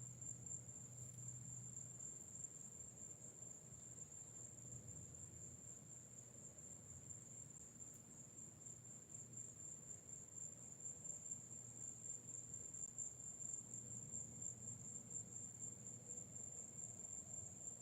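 Faint, steady, high-pitched trilling of night insects, with a soft low hum underneath.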